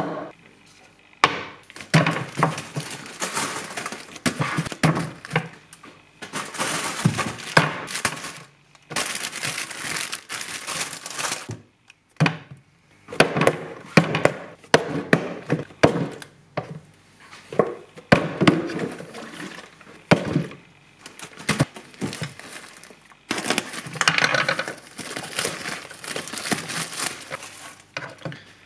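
Food and kitchenware handled and set down on a wooden chopping board: a run of sharp knocks and clatters with stretches of rustling, as a plastic Nutribullet blender cup, a carton and a head of broccoli are put out.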